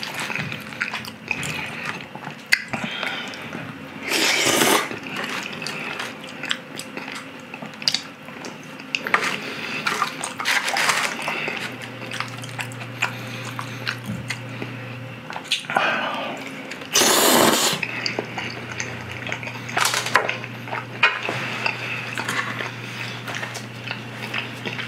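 Close-miked eating sounds: wet chewing and slurping of sauce-coated udon noodles, with wooden chopsticks clicking against a foil-lined tray. Three louder slurps stand out, and a low steady hum comes in about halfway.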